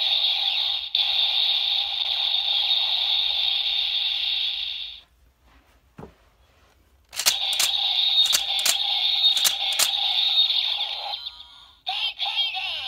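Bandai Ghost Driver toy belt playing its electronic sound effects through its small built-in speaker. The sound stops about five seconds in, a single click follows, and about seven seconds in a new electronic sequence starts with several sharp beats, breaking off near the end.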